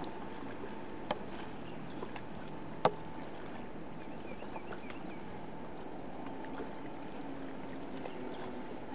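Steady wash of lake water and wind around a small boat, with a couple of sharp knocks, a light one about a second in and a louder one about three seconds in.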